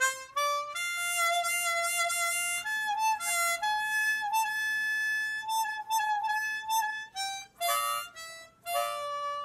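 East Top Forerunner chromatic harmonica played: a quick rising run of notes, then long held notes, some bent so the pitch dips and wavers. It has no windsaver valves, which lets its notes bend easily.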